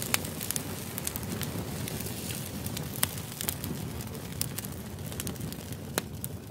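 Open fire burning, a steady low rush with frequent sharp crackles and pops.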